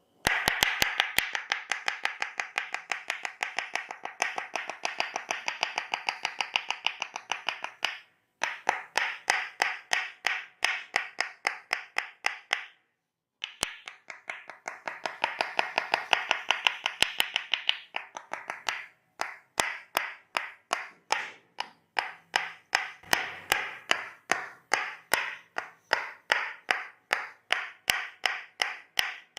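Tok Sen massage: a wooden mallet tapping a wooden wedge pressed on the body, giving sharp, even wooden clicks several a second. The runs break off in short pauses and turn slower near the end.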